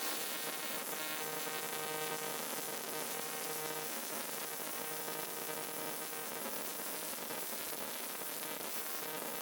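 Welding arc on a cracked alloy wheel: a steady buzzing hiss that starts abruptly and holds.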